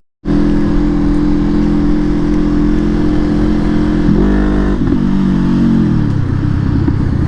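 Honda CBR500R's parallel-twin engine running at a steady pitch, with a brief wobble about four seconds in, then the revs falling away about six seconds in to a lower, steady note.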